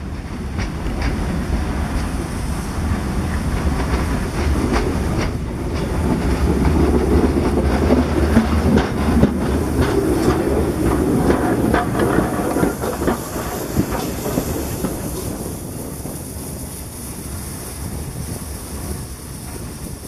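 A DR class 52 2-10-0 steam locomotive rolling slowly past close by. Its wheels clack over the rail joints and points, and steam hisses around the cylinders. It is loudest and the clacking is densest from about 6 to 12 seconds in, then it eases off.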